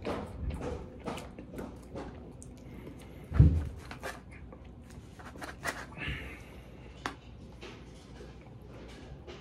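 Close-miked eating: chewing and mouth sounds, with a plastic fork clicking and scraping against a foam takeout container as food is cut. A single loud, deep thump about three and a half seconds in.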